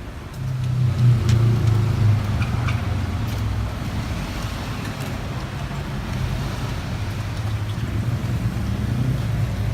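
A road vehicle's low steady engine rumble, swelling under a second in and then holding.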